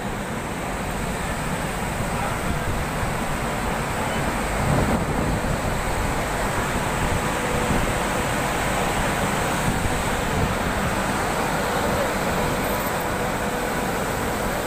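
Passenger train coaches rolling past along a platform: a steady noise of wheels on the track that swells slightly as the last coach goes by.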